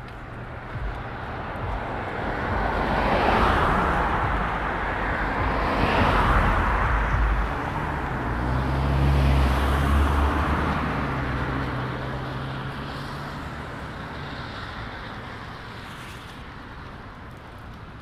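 Traffic passing on a rain-wet road: tyre hiss swells several times toward the middle with a low engine hum, then fades away.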